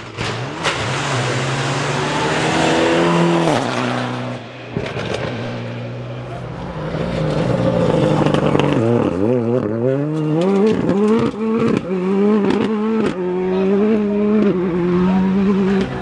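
Rally car engines at full throttle passing on a stage, the pitch climbing through the revs and dropping sharply at each gear change or lift, with a run of quick rev rises and dips in the second half.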